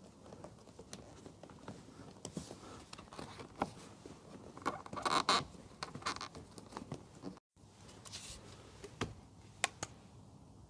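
Rubber window seals being pressed back into place by hand: quiet rubbing and scratching with scattered small clicks, and a few sharper clicks near the end.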